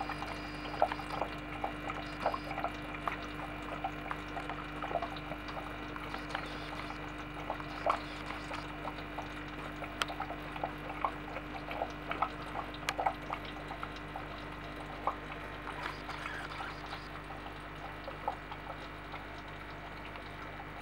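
Aquarium water trickling and dripping, with irregular little plinks like bubbles or drops breaking the surface, over a steady low equipment hum.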